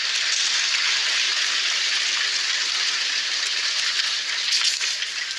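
Applause from a hall full of legislators: dense, even clapping that thins into more separate claps near the end.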